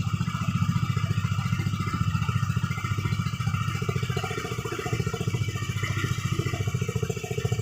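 Small motorized outrigger boat's engine running steadily with a fast, even chugging.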